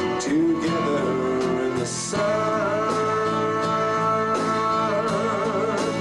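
Male vocalist singing a slow ballad into a handheld microphone over instrumental accompaniment, amplified through the stage sound system. About two seconds in he holds a long note, which wavers with vibrato near the end.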